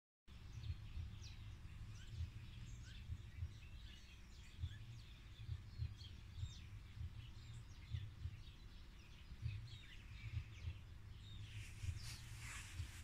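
Small birds chirping faintly in the background over a low, uneven rumble, with a louder rustle near the end.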